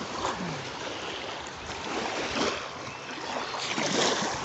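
Small waves of bay water washing up on the shore, swelling twice, about halfway through and near the end.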